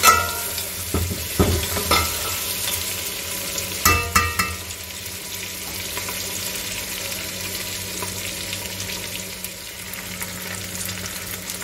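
Boiled mutton pieces frying in hot oil with browned onions in an aluminium pot, sizzling steadily as the meat is browned until it turns red. A metal spoon stirs and knocks against the pot in the first few seconds, the last knocks about four seconds in; after that only the steady sizzle.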